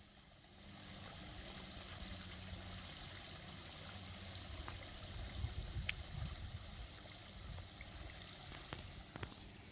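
Small woodland creek trickling and splashing down a rocky gully, a steady hiss of running water, with a few faint ticks.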